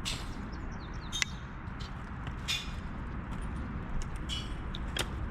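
Demolition debris being handled: a few scattered sharp knocks and clinks, the clearest about a second in and near the end, over a steady low rumble.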